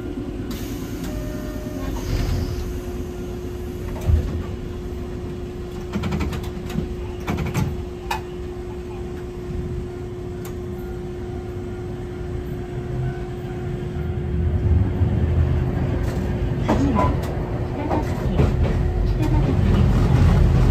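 Hankai Tramway type 701 streetcar running along the line: a steady hum with scattered clicks from the wheels on the rails, the running noise growing louder in the second half.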